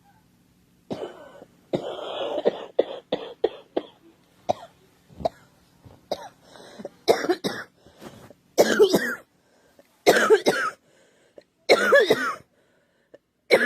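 A girl coughing in a fit: a quick run of short coughs a couple of seconds in, then several louder, voiced coughs spaced about a second and a half apart.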